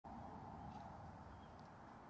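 Near silence: faint, steady outdoor background noise.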